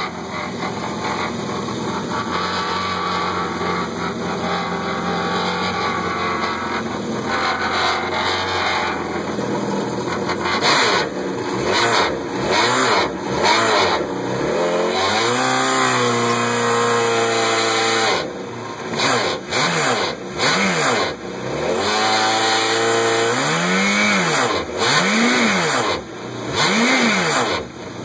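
2012 Yamaha VXR personal watercraft engine running steadily, then revved in a series of throttle blips, each rising and falling in pitch. It makes an unusually loud exhaust noise whose cause the owner could not find in the plastic exhaust tubing.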